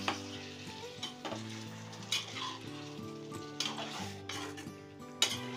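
Stuffed small eggplants with onions sizzling in oil in a kadhai as a metal slotted spoon stirs them, scraping the pan in a few strokes, the sharpest at the start, about two, three and a half and five seconds in. Soft background music runs underneath.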